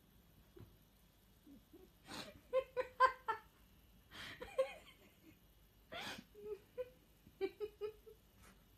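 A person's quiet, stifled laughter: breathy exhales, each followed by a run of short, high giggles, in four bouts about two seconds apart.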